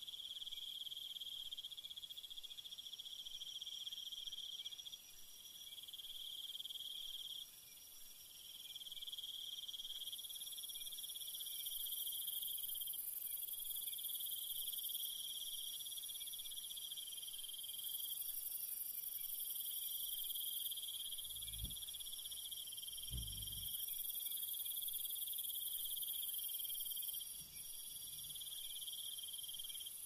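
Night-time jungle insect chorus: several insects trilling at once in steady high bands, with a still higher, shriller layer that comes in about a third of the way through and cuts in and out. A couple of faint low thumps about two-thirds of the way in.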